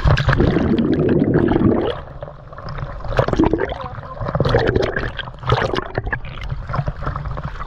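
Sea water splashing and gurgling right at a camera held by a scuba diver at the surface in choppy water, with a loud churning burst over the first two seconds and then shorter splashes as waves wash over the camera and it dips under.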